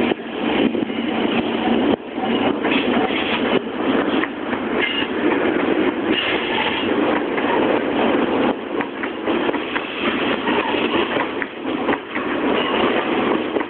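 Freight train hauled by an EH500 electric locomotive passing close by, its wheels and tank-container wagons in a continuous rumble and clatter on the rails.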